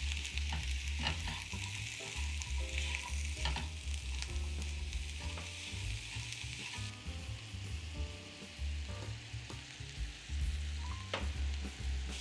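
Food sizzling in a frying pan, a steady hiss with scattered clicks of a utensil stirring, over soft background music with a steady bass.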